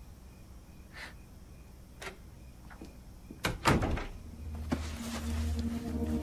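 A door shutting with a sharp thump about three and a half seconds in. A low, steady music bed of held tones comes in shortly after.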